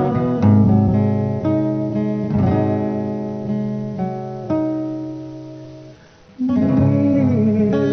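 Acoustic guitar strumming chords that ring out and fade between strokes. Near silence for a moment about six seconds in, then the strumming starts again.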